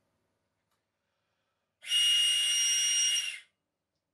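3D-printed telescoping tube whistle, fully extended, blown in one steady high-pitched blast of about a second and a half, starting about two seconds in, with a breathy rush under the tone. It is very loud, around 101 decibels when fully extended.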